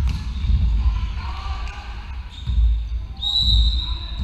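A referee's whistle gives one long, steady blast. It starts faintly about two seconds in and is full from about three seconds in, the usual whistle for the serve in volleyball. Beneath it are dull low thuds of a volleyball bouncing on the hardwood floor of the echoing hall.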